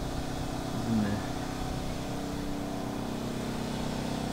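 Steady low mechanical hum at a constant pitch, engine-like, unchanging throughout.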